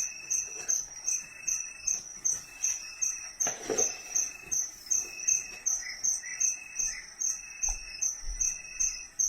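Momcozy DreamSync baby sound machine playing its cricket sound: even, high chirps about three a second.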